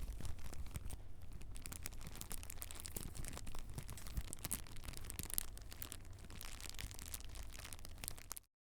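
Home-made campfire sound effect made by squeezing and crinkling a plastic PET bottle: dense, irregular crackles and snaps over a low rumble, cutting off suddenly near the end.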